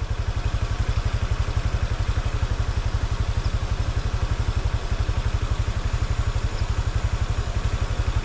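Motorcycle engine running at low revs with a steady, even pulsing throb, over a hiss of road and wind noise.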